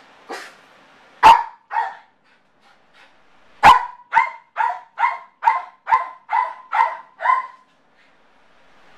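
Yorkshire terrier barking from separation anxiety at being left alone: a softer yip, then two loud barks about a second in, then a rapid run of about nine barks at roughly two a second that stops near the end.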